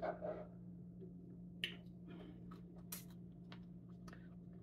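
Quiet eating sounds: a spoon clicking a few times against a small bowl, with soft mouth sounds while eating fruit smoothie. A steady low hum runs underneath.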